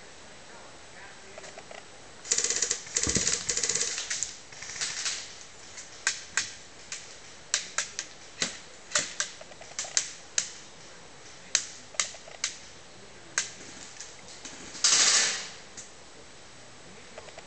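Airsoft BB fire at a wooden pill-box: a dense rattle of sharp cracks about two seconds in, then single cracks every half-second to a second, and another short dense rattle near the end.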